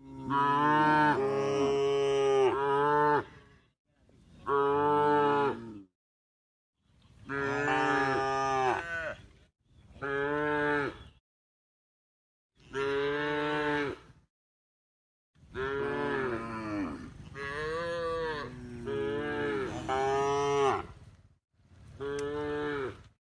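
Cows mooing: a series of about eight separate moos, each one to three seconds long, with dead silence between them.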